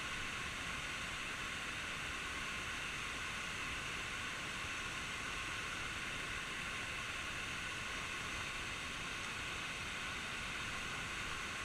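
Waterfall's steady rushing hiss, even and unbroken throughout.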